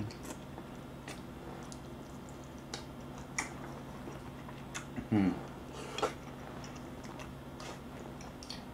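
A person chewing food with the mouth closed: faint, scattered wet mouth clicks, with a short hum rising in pitch about five seconds in.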